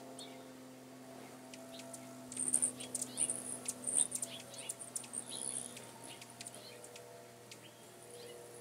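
Hummingbirds chipping and squeaking at feeders: rapid, very high chip notes, busiest and loudest in the middle few seconds, over a faint steady low hum.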